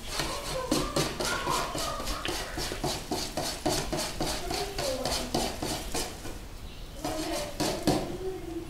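Wire balloon whisk stirring flour into a runny mandazi batter in a bowl, its wires clicking against the side of the bowl in a quick run of taps, about four a second. The taps pause briefly about six seconds in, then start again.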